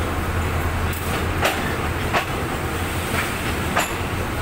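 Passenger train of State Railway of Thailand coaches rolling slowly past on the next track: a steady low rumble with several sharp clanks from the wheels over the rail joints.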